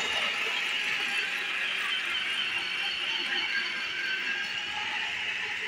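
Toy train set's locomotive running around its track: a steady high-pitched whirring squeal from its small electric motor and gears.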